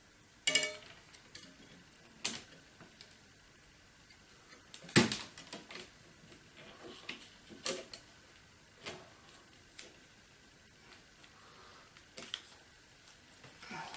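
Scattered clicks, taps and light knocks of hands handling a laptop's replacement LCD panel and plastic screen lid while fitting it. The sharpest knock comes about five seconds in.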